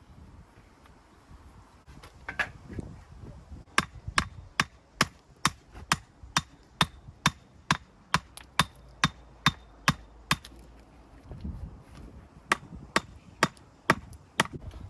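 Hammer striking in a steady run of about sixteen blows, a little over two a second, then after a short pause a few more.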